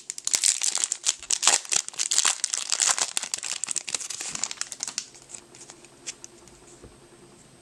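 Foil wrapper of a Yu-Gi-Oh! booster pack crinkling and tearing as it is torn open by hand: a dense crackle for the first four to five seconds, then only a few faint ticks as the cards are handled.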